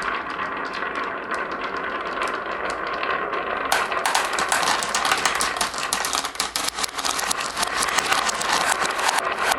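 Marbles rolling and clattering down a wooden HABA marble-run track: a steady rolling rumble with rapid clicks, which turn into a dense clatter about four seconds in.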